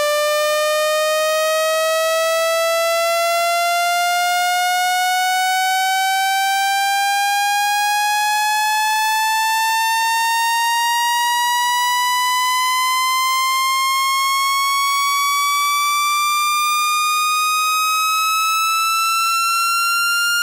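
Synthesised speaker-cleaning tone for ejecting water from a phone speaker: a single steady electronic tone, bright with overtones, climbing slowly and evenly in pitch.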